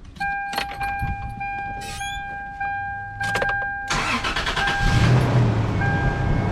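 A steady dashboard warning chime with a few clicks, then about four seconds in the 1998 Toyota Tacoma's 3.4-liter V6 cranks, catches and settles into an idle while the chime beeps on and off about once a second.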